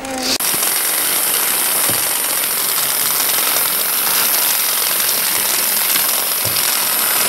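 Toy train running round its plastic track close by: a loud, steady mechanical running noise that starts suddenly about half a second in.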